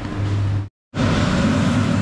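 Steady street noise with motor traffic and a low hum. It cuts out completely for a moment about three-quarters of a second in, then returns louder.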